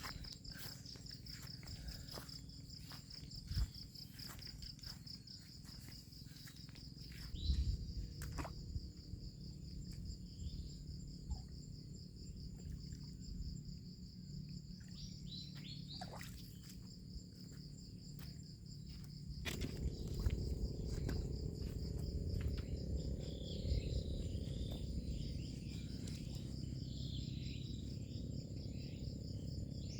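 Insects chirring steadily in a high, finely pulsing trill, with a fainter, higher steady tone above it and a few short bird chirps. A low rumbling noise grows louder about two-thirds of the way through.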